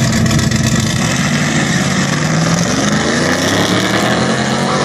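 Engines of a Plymouth Barracuda and a Pontiac Trans Am on a drag strip start line, running steadily and then revving up as the cars launch about three seconds in, the pitch climbing as they accelerate away.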